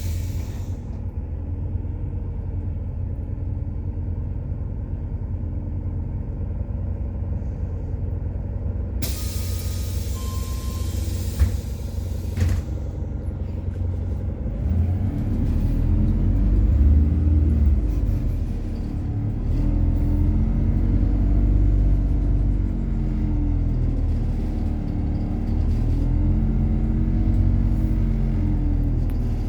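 Methane-fuelled MAZ-103 city bus heard from on board: the engine rumbles steadily at idle, then a burst of air hiss with a two-tone beep and a couple of clicks comes near the tenth second. From about fifteen seconds the bus pulls away, its engine louder and its pitch rising and falling as the gearbox shifts.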